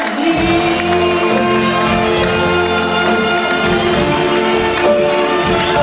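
Live big band playing, brass section with trombones holding sustained chords; the bass and rhythm section come in about half a second in.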